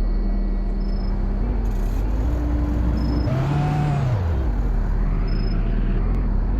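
Mazda car engine idling low, revved once about three seconds in, the revs rising and falling back within about a second.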